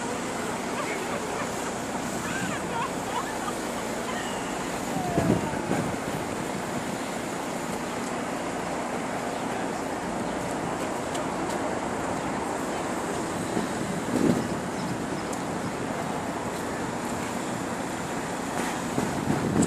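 Outdoor city ambience: a steady hiss of wind and distant traffic, with short louder swells about five, fourteen and nineteen seconds in.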